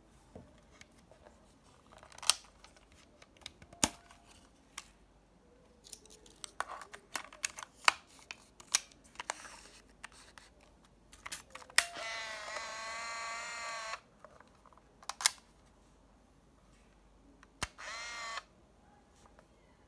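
Olympus Trip 505 compact 35mm film camera being loaded: a run of sharp plastic clicks as the back door is opened, the film is laid in and the door is snapped shut. Then the motor whirs steadily for about two seconds as it winds the film to the first frame. Near the end a click is followed by a shorter whir of the film-advance motor.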